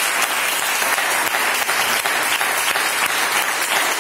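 Loud, steady applause from an audience clapping.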